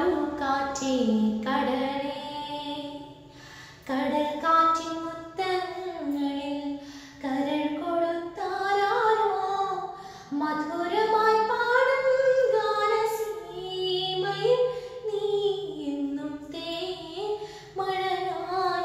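A woman singing a melody unaccompanied, holding long notes that slide up and down in pitch.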